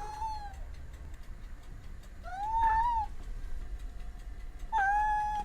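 A domestic cat meowing three times, each call under a second long with a pitch that rises and falls; the middle meow is the loudest.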